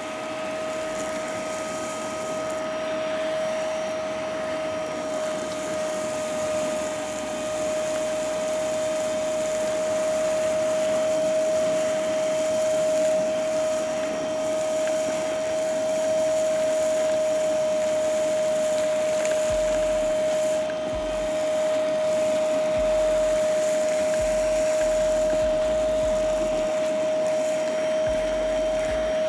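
Evotools One Epto 18V cordless wet-dry vacuum running steadily: a constant high motor whine over the rush of air through the hose.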